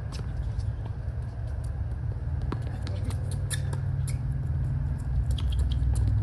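Tennis rally on a hard court: racket strikes on the ball and ball bounces come as sharp pops every second or so, the loudest about three and a half seconds in, over a steady low rumble.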